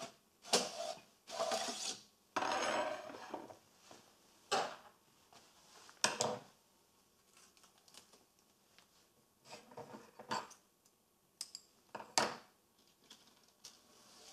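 Component reels and the reel holder of a pick-and-place machine being handled as a reel is taken off: scattered clicks and knocks, with a longer stretch of rubbing and rustling about two to three seconds in.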